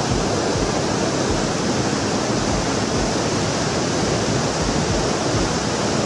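Steady rush of a waterfall and stream, water pouring over rock.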